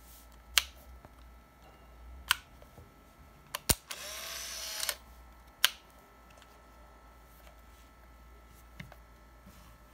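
Konica POP AF-200 compact 35mm film camera being worked by hand: a few sharp mechanical clicks, and about four seconds in a shutter click followed by the camera's small motor whirring for about a second as it winds on. Another click comes shortly after.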